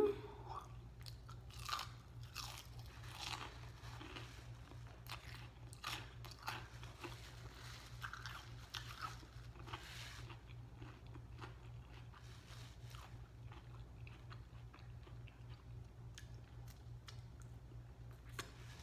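Close-up chewing of crunchy fried food, many crisp crunches in the first half that grow fainter and sparser later, over a steady low hum.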